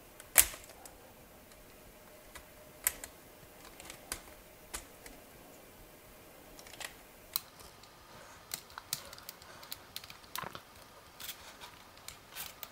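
LEGO Technic plastic parts clicking as connectors and beams are pulled out and pressed back into place: scattered sharp clicks, the loudest about half a second in.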